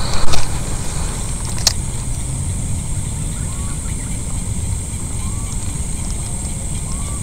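Wind rumbling on the microphone over a steady high-pitched insect drone. There is a short loud rush just after the start and a single sharp click about a second and a half in, as a spinning reel is handled and wound to retrieve a cast lure.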